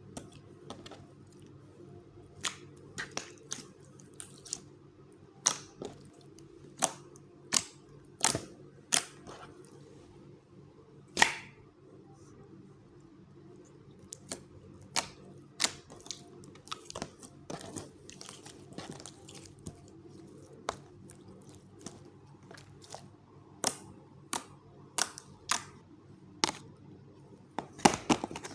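Slime being handled, squeezed and poked, giving irregular sharp pops and clicks, some in quick clusters, over a low steady hum.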